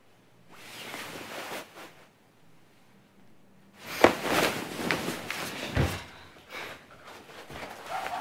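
Bedding rustling as someone tosses and turns under a duvet, with a sharp knock about four seconds in and a dull thump near six seconds.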